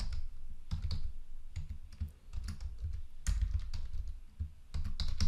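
Typing on a computer keyboard: irregular runs of keystrokes, each click carrying a dull low thump, with a brief pause about two seconds in.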